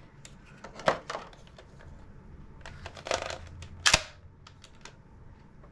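Plastic clicks and handling noise from a DX Tensouder toy morpher being worked by hand, with a sharp click about a second in, a brief rattle around three seconds and a louder snap just after.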